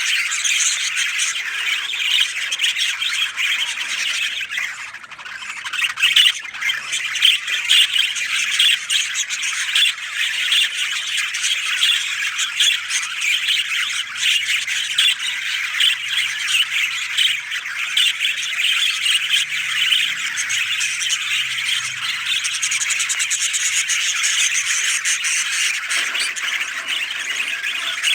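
A dense, continuous chorus of many birds chirping and squawking together, with a brief lull about five seconds in.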